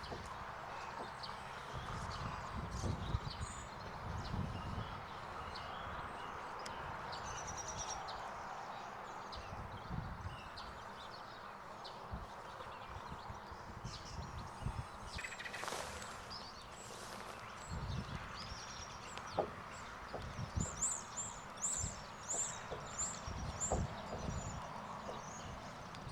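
Small birds chirping, with a run of high chirps near the end, over the irregular dull thuds of a horse's hooves walking on soft ground.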